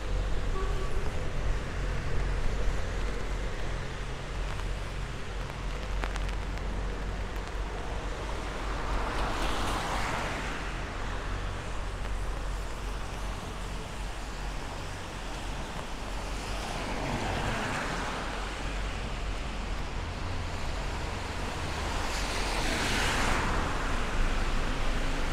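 Traffic on wet roads: a steady hiss under a low rumble, with the tyre swish of passing vehicles swelling and fading three times, about ten, seventeen and twenty-three seconds in.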